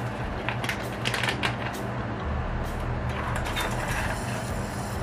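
Plastic bag of grated cheese crinkling in gloved hands as it is tipped and shaken over a bowl: a run of short crackles, thickest in the first couple of seconds, over a steady low hum.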